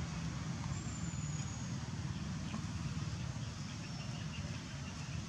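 Steady low rumble of background noise, even throughout, with a faint thin high whistle about a second in.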